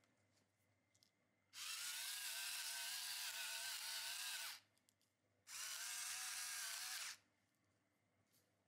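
Electric pepper mill running twice as it grinds pepper onto the food: a steady motor whine of about three seconds, a short pause, then about a second and a half more.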